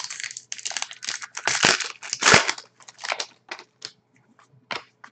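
Foil wrapper of a Panini Rookie Anthology hockey card pack being torn open and crinkled, a dense run of crackles over the first two to three seconds, thinning to a few short snaps and rustles as the cards are handled.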